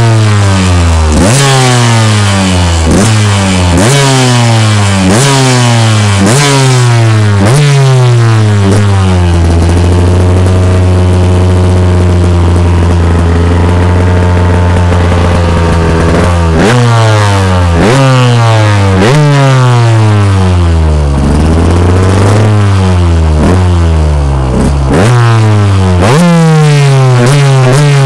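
2007 KTM 125 EXC's 125cc two-stroke single-cylinder engine with its stock exhaust, revved in quick throttle blips about once a second, each shooting up and falling back. About ten seconds in it is held at a steady speed for some seven seconds, then the blips start again.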